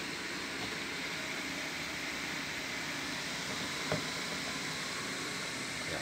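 Steady background hiss of room noise, with one faint short knock about four seconds in.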